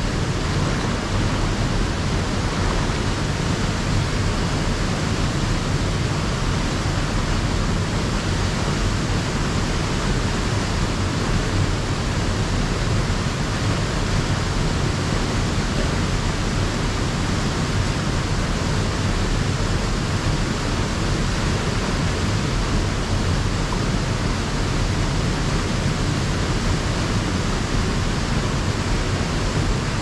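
A small waterfall pouring into a rocky plunge pool, making a steady, even rush of water that does not change.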